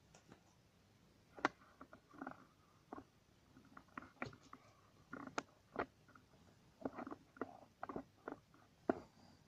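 Kitten playing with a hanging string toy on a carpeted floor: an irregular run of soft taps, scuffles and rustles, the sharpest about a second and a half in and near the end.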